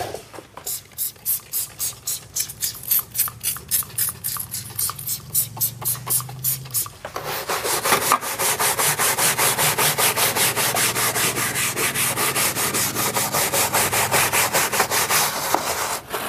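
Small bristle brush scrubbing the textured black plastic rear bumper trim of a Gen 1 Ford Raptor with a foaming cleaner, to lift the grime out of the faded plastic. Quick back-and-forth strokes at first, becoming faster, louder and continuous about halfway through.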